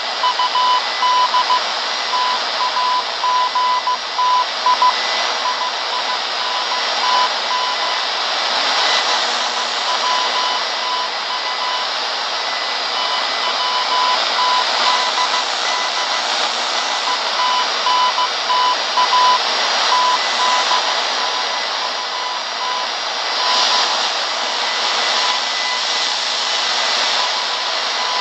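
Morse code signal received on a shortwave radio: a single high beep keyed on and off in dots and dashes over loud, steady static hiss.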